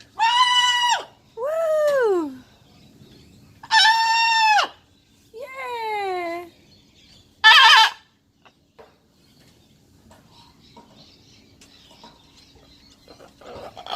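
Pet macaw calling: five loud calls in the first eight seconds, some held level and some sliding down in pitch, the last one short and sharp. The rest is quiet.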